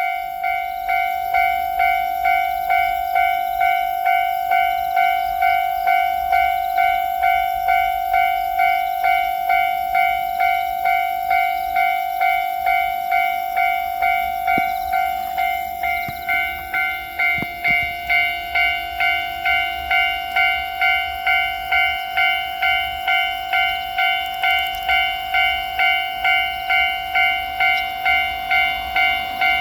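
Japanese railway level-crossing alarm ringing its electronic 'kan-kan' bell in a steady, even rhythm of pulsed tones. A fainter low hum joins about halfway through.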